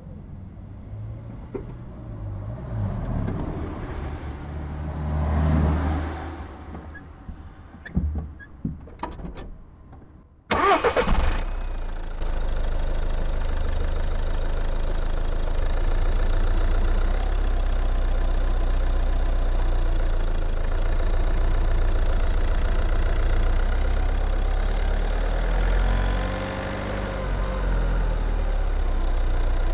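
Skoda Octavia's 1.6 TDI (CAYC) four-cylinder diesel engine, heard close up from under the bonnet. After some quieter clicks and knocks, it cranks briefly and catches about ten seconds in, then idles steadily.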